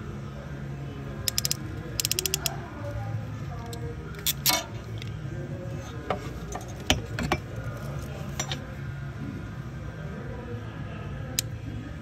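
Ratcheting crimp tool clicking as it crimps insulated butt connectors onto wires. It gives short runs of quick, even ratchet clicks about one and two seconds in, a louder cluster of clicks around four and a half seconds, then scattered single clicks.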